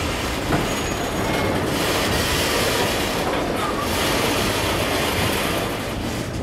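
Freight train of autorack cars rolling past close by: a steady rumble and rattle of steel wheels on the rails, with a brief high wheel squeal about a second in.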